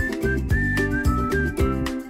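Background music: a high single-note melody over a steady beat and bass.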